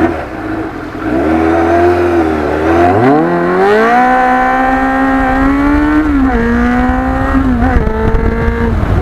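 Motorcycle engine pulling away and accelerating, its pitch climbing for a few seconds and then holding at speed with brief dips, with wind rumbling on the microphone.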